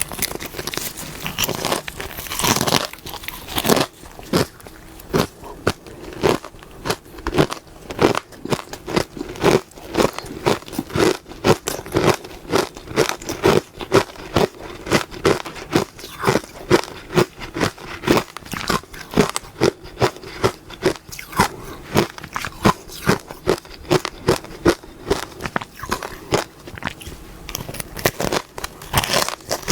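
Close-miked biting and chewing of soft powdery ice dusted with matcha powder: one bigger crunching bite about two seconds in, then a steady run of chewing crunches, about two or three a second.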